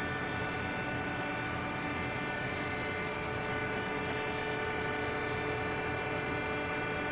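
A steady mechanical hum made of several held tones, even in level throughout.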